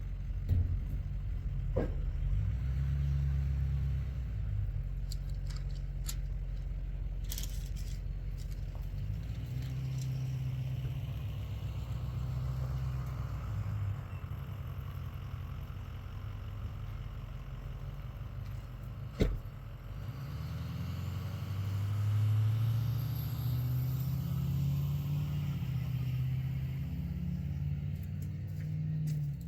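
An engine running, its pitch and load shifting up and down, with a few sharp knocks, the loudest about two-thirds of the way through.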